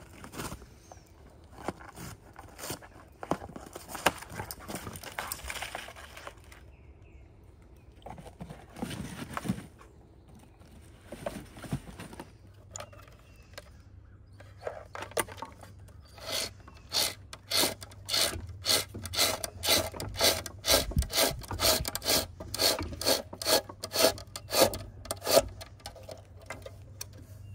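Scraping and rubbing handling noise, then in the second half a long run of regular clicks, about two a second, as an LED strip light is unwound from its plastic reel.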